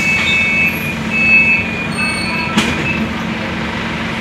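Scania articulated city bus standing at a stop with its engine idling as a steady low hum. Over it a high-pitched tone comes and goes for about two and a half seconds, then a sharp click.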